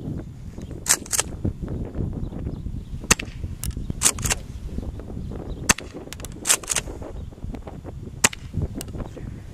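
Tokyo Marui M870 gas airsoft shotgun firing shot after shot: sharp pops, some in close pairs, with the clack of the pump action between them. A steady low wind rumble on the microphone runs underneath.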